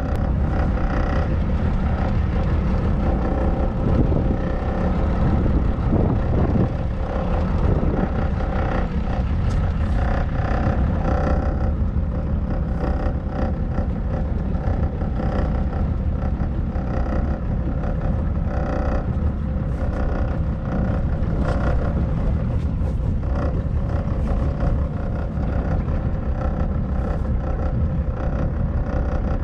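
Small pleasure boat's engine running steadily underway, a continuous drone over a low rumble.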